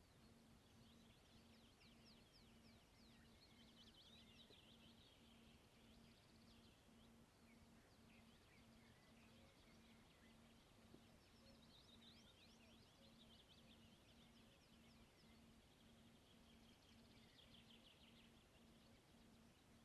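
Faint songbird song: short phrases of rapid high notes repeating every few seconds, over a faint, steadily pulsing low hum.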